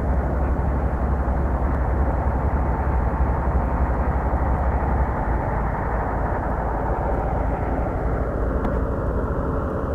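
Diesel engine of a truck-mounted crane running steadily with a low rumble, easing slightly about halfway through.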